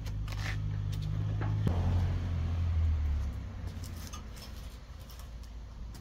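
Wood fire in a metal brazier crackling and popping with sharp irregular snaps. Under it, a low steady drone drops lower about two seconds in and stops a second or so later.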